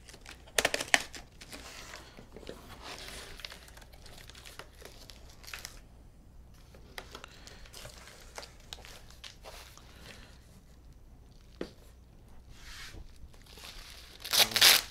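A taped cardboard shipping box being opened: packing tape slit and torn, flaps and packing handled, then a bubble-wrapped part lifted out and its plastic wrap crinkling. There are louder tearing bursts about a second in and near the end.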